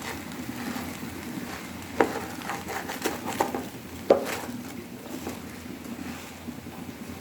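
Polao rice frying in oil and ghee in a pot, with a steady low sizzle, while a spatula stirs it and knocks against the pot five or six times between about two and four seconds in.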